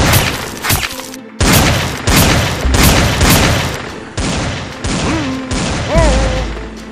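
Film-style gunfire sound effects: bursts of rapid shots with heavy booms, each burst starting abruptly and fading before the next, about four fresh bursts in all.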